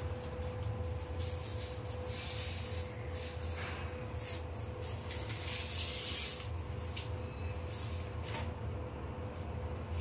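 Self-adhesive velcro strip being pressed and rubbed by hand onto a window frame as its backing paper peels away: irregular papery rasps and hissing over a steady low hum.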